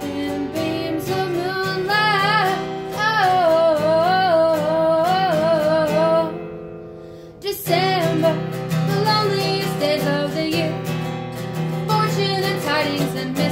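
Guitar strumming under a woman singing long, wavering held notes. The music thins out about six seconds in and comes back in sharply a second or so later.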